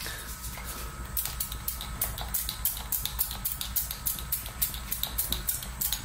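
Olive oil crackling and spitting in a hot nonstick pan: a rapid, irregular run of sharp little pops, several a second.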